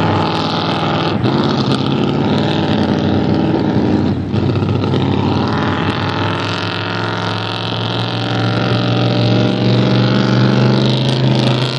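A motor vehicle engine running steadily, its pitch drifting slightly as the revs change, with a brief drop in level about four seconds in.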